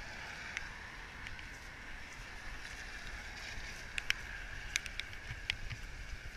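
Wet-street outdoor ambience: a steady hiss with low wind rumble on the microphone, and from about four seconds in a scattering of light, sharp clicks.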